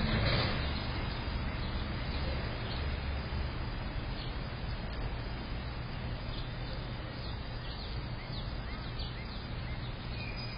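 Small birds chirping in short quick notes over a steady outdoor noise with a low rumble; the chirps come thickly in the second half.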